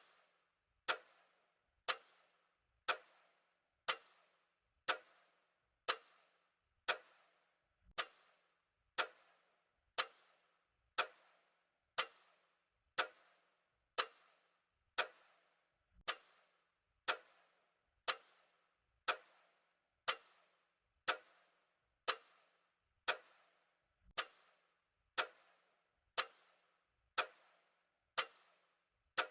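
A clock ticking steadily, one sharp tick about every second with a brief ringing tail after each.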